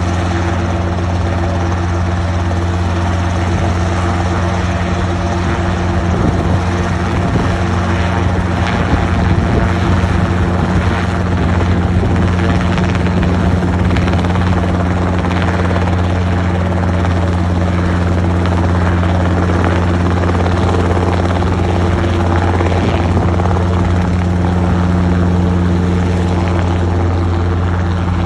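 Helicopter running steadily: a loud, constant low hum with an even noisy wash above it, unchanged throughout.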